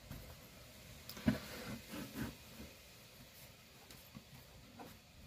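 Faint handling noise from a brake line being pulled back through a car's wheel well by hand: light rubs with a few soft knocks, the clearest about a second in and just after two seconds.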